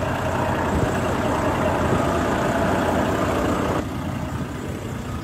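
A heavy vehicle engine idling, a steady low rumble with a steady higher hum on top that cuts off suddenly a little before the end.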